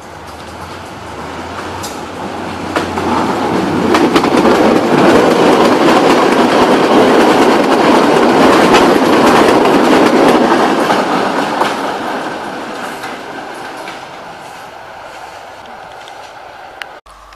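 Passenger train's carriages rolling past close by, wheels clicking over the rail joints. The sound builds to a peak around four to ten seconds in, then fades as the train moves away, and cuts off suddenly near the end.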